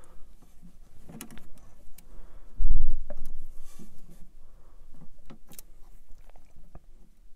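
Small metallic clicks and taps of an Allen key and screws being worked on a 3D printer's metal carriage plate, with one dull, heavy thump a little under three seconds in.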